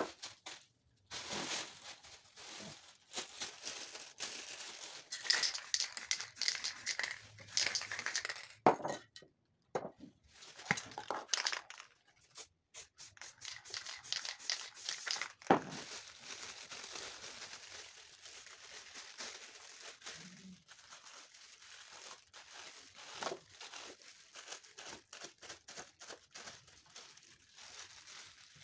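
Hands handling plastic on a painting board: irregular rustling and crinkling, with a couple of sharp knocks, as a plastic bowl is pressed down and a plastic bag is crumpled.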